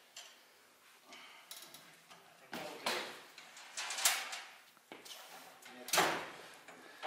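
Heavy sheet-metal cabinet strapped to a hand truck being tipped back onto its wheels: a series of clunks, knocks and scrapes of metal, the loudest about six seconds in.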